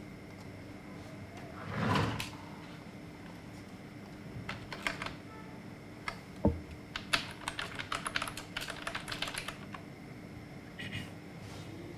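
Typing on a computer keyboard: a few key clicks, a dull thump, then a quick run of keystrokes lasting a couple of seconds. A short soft rushing swell comes about two seconds in.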